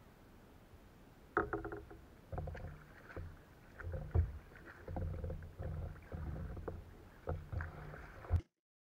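Kayak paddling: a double-bladed paddle stroking through the water about once a second, with hollow thumps carried through the plastic hull. The strokes start about a second and a half in and cut off suddenly near the end.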